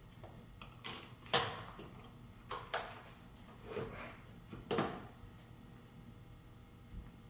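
A handful of short, sharp metal clinks and scrapes, about six in the first five seconds, as a screwdriver works on the steel parts of a Browning BPS shotgun during its teardown.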